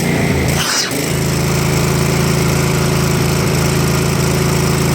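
Gas engine of a 5.2 gpm pressure washer running steadily. About a second in, its note shifts and then holds steady as the ball valve is opened and the pump's flow changes; the owner is unsure whether the change comes from the unloader's bypass.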